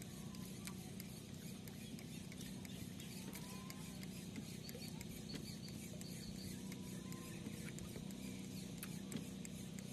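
Daiwa Joinus 1500 spinning reel being cranked to retrieve a lure: a faint, steady whir with a few light squeaks.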